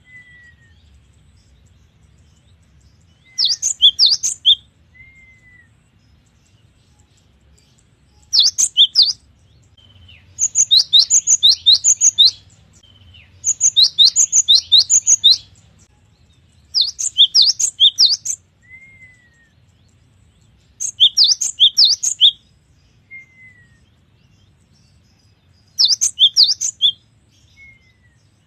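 Cinereous tit (gelatik batu) singing vigorously: bursts of rapid, sharp, high notes, each phrase lasting a second or two and repeated every few seconds. Faint short down-slurred notes come between the phrases.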